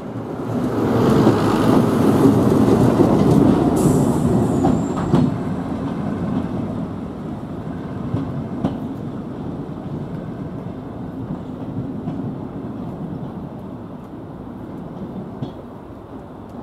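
A vintage British Rail diesel multiple unit pulls away and its coaches rumble past close by, with a few wheel clicks over rail joints. The sound then fades steadily as the train draws away.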